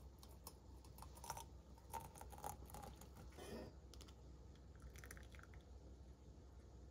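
Faint, scattered clicks and light taps, as of small objects being handled, over the first few seconds. A low steady hum runs underneath.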